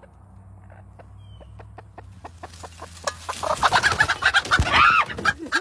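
Birds calling, fowl by the sound of it: faint short clicking calls that build, about three seconds in, into a loud, dense flurry of calls and noise.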